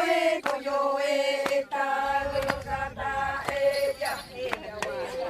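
Voices chanting in long, held notes, with sharp clicks or knocks several times.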